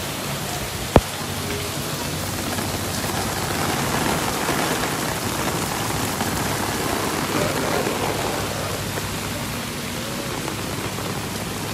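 Heavy rain falling steadily, with one sharp click about a second in.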